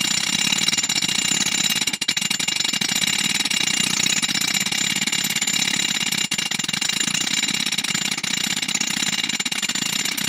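Two steel hammers beaten in fast alternation on the face of a cast steel anvil: a continuous, noisy clatter of ringing metal-on-metal blows. The hammering is done to knock out the magnetism left in the anvil by an electromagnetic lifter.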